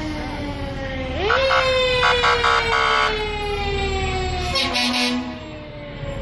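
Fire truck siren winding slowly down in pitch, then rising sharply about a second in and winding down again, with a run of short air-horn blasts between about one and a half and three seconds in.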